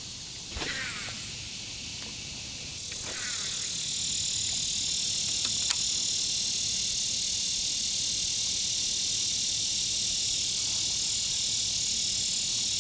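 Evening chorus of insects, a steady high-pitched chirring that swells about three to four seconds in and then holds. There are two brief falling sounds near the start and one sharp click midway.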